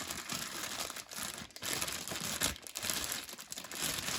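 Plastic packaging crinkling and rustling as it is handled, a battery being unpacked from it.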